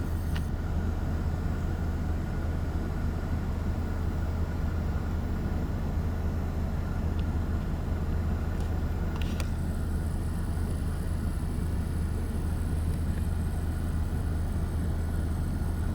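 Ford Escape 4x4 running, a steady low drone with no change in pitch or level.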